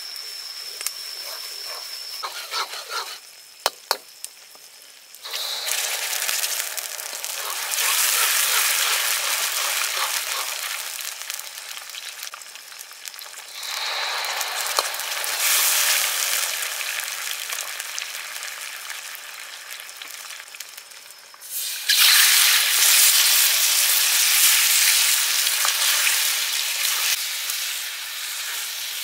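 Chili-garlic sauce frying in hot oil in a wok, a steady sizzle while a metal ladle stirs it, with a few sharp knocks about three to four seconds in. The sizzle jumps suddenly louder about five seconds in and again near 22 seconds, the second time loudest.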